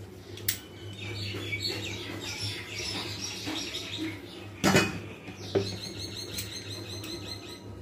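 Small birds chirping busily in quick, high notes, over a steady low hum. Two sharp knocks a little past the middle, about a second apart, are the loudest sounds.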